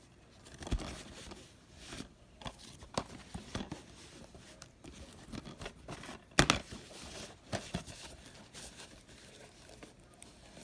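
Rustling, crinkling and clicking handling noises, irregular throughout, with a sharp knock about six and a half seconds in.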